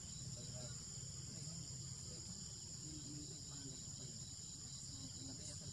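Steady, high-pitched chorus of insects such as crickets or cicadas, unbroken throughout.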